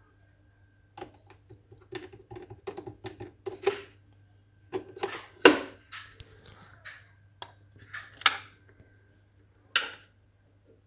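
Irregular clicks and knocks of a Nespresso coffee machine being handled, over a faint steady low hum, with a few sharp clicks in the second half.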